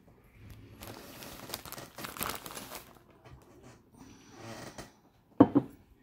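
Plastic poly mailer envelope crinkling as it is handled and opened, in two stretches of rustling. A brief louder sound near the end.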